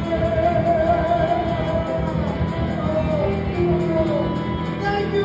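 Live band playing: electric guitars, bass, keyboard and drums, with a sustained, wavering melody line over the steady rhythm.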